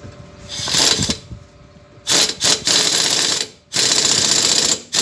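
A power tool running in three bursts of one to one and a half seconds each.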